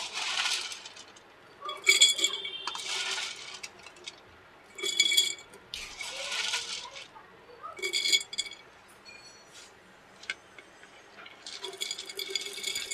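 Dried, crisp chana dal badis dropped by the handful into a container jar: bursts of dry rattling and ringing clinks as the hard pieces hit the jar, coming every few seconds with a cluster near the end.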